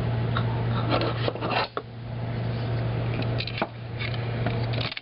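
Metal server rail parts being handled: a few light clicks and clatters, over a steady electrical hum.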